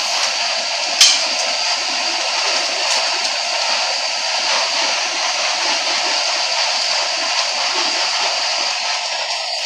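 Mercedes-Benz OF-1721 city bus running on the road, heard from inside the cabin: a steady hiss of engine and road noise, with one sharp knock about a second in.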